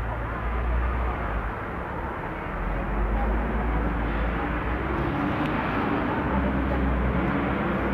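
Steady city street noise of passing traffic, with a constant low rumble and no distinct events.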